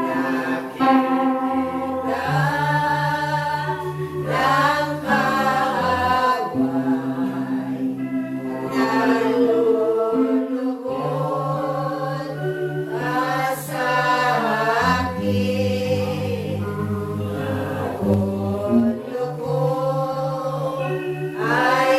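A group of voices singing praise together in long, bending phrases over steady low notes that are held for several seconds and change every few seconds.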